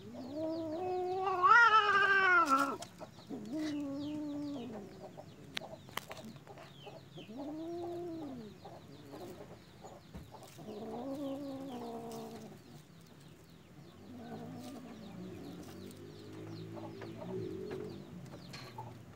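Cats mating, with a series of drawn-out yowls. The first and loudest starts about half a second in, rises and then falls. Four shorter or lower calls follow, and faint quick high chirping runs underneath.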